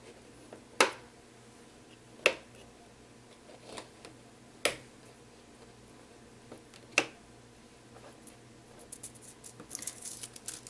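Magnetic hold-down strips of a We R Memory Keepers Foil Quill magnetic mat clicking sharply as they are lifted off and set down, four snaps about two seconds apart. Near the end, thin foil sheet crinkles as it is handled.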